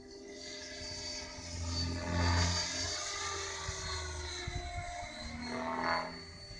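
Mikado Logo 500 electric RC helicopter with an Align 600MX brushless motor in flight: a high motor whine and rotor buzz that rise and fall in pitch as it manoeuvres, loudest twice as it passes.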